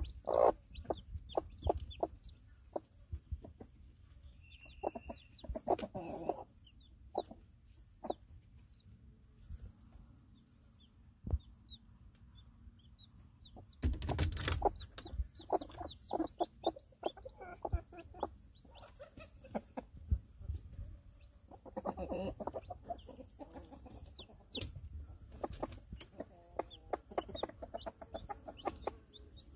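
Hens clucking in short, irregular bursts, with high, thin peeps from two-to-three-day-old chicks, and a louder flurry of clucking about halfway through.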